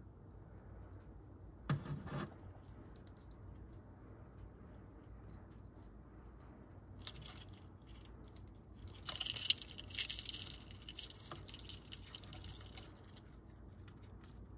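Faint scratching and rustling of beetles' claws on bark, soil and a plastic cup as they grapple. There is a short scrape about two seconds in and a longer spell of scratching between about nine and thirteen seconds in.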